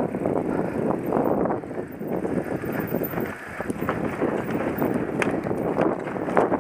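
Downhill mountain bike rolling down a dirt trail: tyres crunching over dirt and dry leaves, with the bike rattling and clattering over bumps, and wind buffeting the helmet-mounted microphone.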